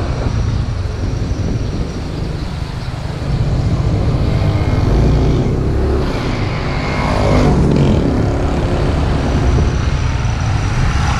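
Motorcycle engine running at road speed, with wind buffeting the microphone. About seven seconds in, an engine note falls in pitch over a second or so, as a vehicle goes by or the engine slows.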